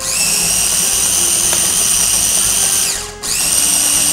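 Small electric food processor running, its motor whining steadily as it blends a thick onion, oil and mayonnaise dip. About three seconds in it winds down, stops for a moment, and spins up again.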